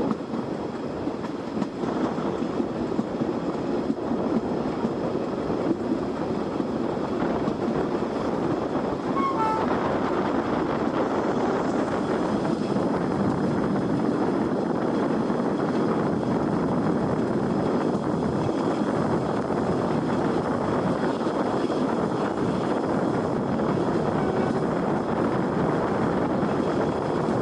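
Steady running noise of a moving passenger train, its wheels rolling on the rails, heard from a coach window.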